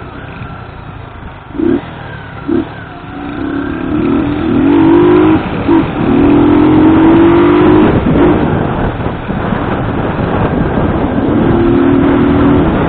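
Motorcycle engine revving: two short throttle blips about two seconds in, then longer pulls where the pitch rises and holds, a drop around eight seconds, and another pull near the end.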